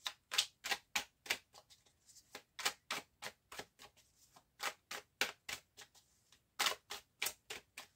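Deck of tarot cards shuffled by hand, overhand, in quick crisp strokes about three a second, with a brief pause a little past halfway.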